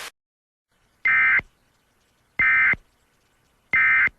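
Emergency Alert System end-of-message signal: three short, identical bursts of warbling digital data tones, evenly spaced about a second and a half apart, marking the close of the alert.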